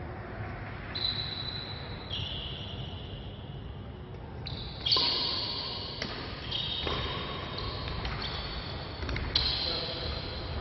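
Badminton rally on an indoor court: rackets strike the shuttlecock with sharp cracks, the loudest about five and nine seconds in, while players' shoes squeak high and long on the court floor.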